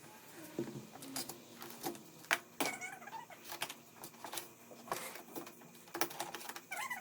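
Scattered sharp clicks and light knocks from TV parts and small components being handled, with faint short squeaks about three seconds in.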